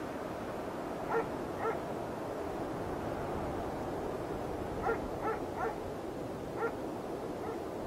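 A dog barking in short, fairly high-pitched barks: two about a second in, then a run of five in the second half, over a steady background hiss.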